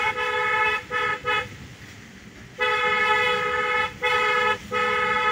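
A vehicle horn honking over road noise, all on one steady note: a couple of short toots early on, a pause of about a second, then a long blast of over a second followed by two shorter ones.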